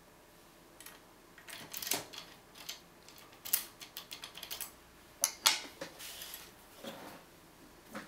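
A key going into a brass Vachette 7000 half euro cylinder, worked in the lock and drawn out again: a run of small metallic clicks and scrapes as it rides over the pin tumblers. The loudest clicks come about five seconds in.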